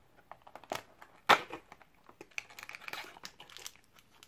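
A cardboard advent-calendar door popped open with one sharp snap about a second in, amid light scratching of fingers on cardboard. Then a small clear plastic treat packet crinkles as it is pulled out and handled.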